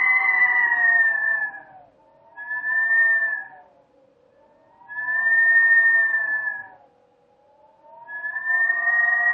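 Howling wind: a pitched, whistling howl that swells and fades in gusts. It drops away about two seconds in, comes back in a short gust and then a longer one, and rises again near the end, its pitch sagging low in the lulls.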